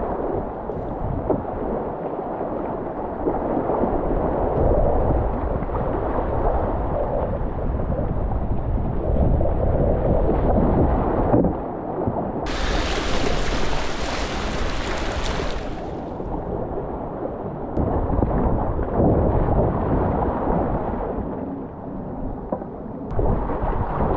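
Whitewater rushing through river rapids, a dull, muffled rush with wind buffeting the microphone. About halfway through, it turns bright and hissing for around three seconds as water splashes close by.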